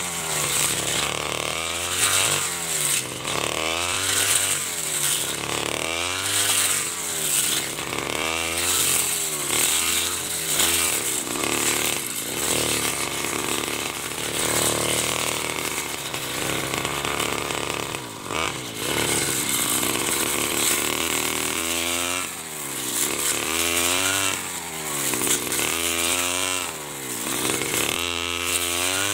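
A 49cc side-carried brush cutter engine running at high revs. Its pitch rises and falls about once a second with each sweep of the blade through standing rice stalks.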